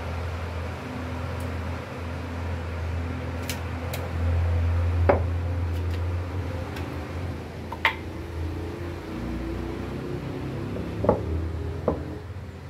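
Wooden bench legs knocking a few times as they are set down and stood up on a concrete floor, over a steady low hum.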